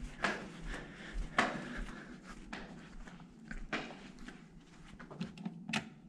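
Footsteps in a broken sandal, clicking and slapping at about one step a second while walking on carpet, with a sharper click near the end.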